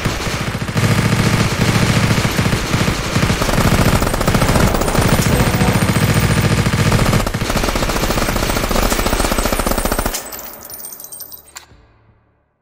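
Sustained automatic gunfire, shots following one another in a rapid, dense stream; it stops about ten seconds in and the sound fades away over the next two seconds.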